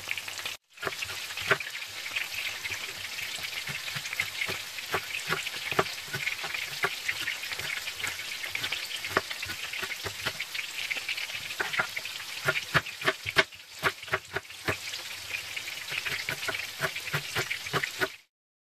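Chef's knife chopping a shallot on a plastic cutting board, sharp taps in quick irregular runs, over steady sizzling of tofu frying in oil.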